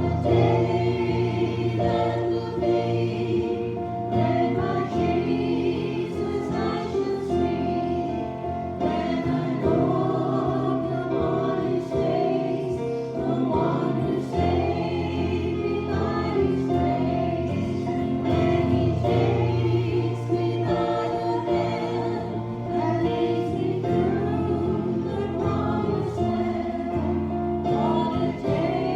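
Gospel song sung by a group of voices over instrumental accompaniment.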